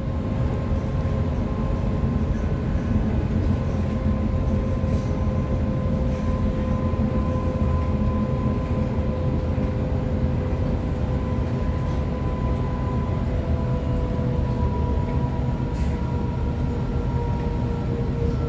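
Sydney Trains Waratah electric multiple unit running between stations, heard from inside the carriage: a steady rumble of wheels on track with a traction-motor whine that sinks slightly in pitch.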